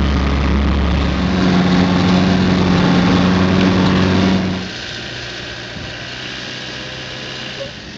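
Land Rover engine running as it drives across a field, heard loud and close from the bonnet, its note shifting about a second in. About halfway through the sound drops suddenly to a quieter, steady engine hum.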